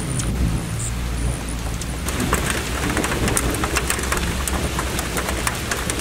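Rain falling in a pine forest, drops pattering on foliage and needle-covered ground over a steady low rumble. The patter grows denser about two seconds in.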